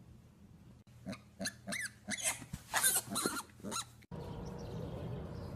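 A piglet giving a quick run of short, high squeals, starting about a second in. At about four seconds it cuts abruptly to a steady low hum.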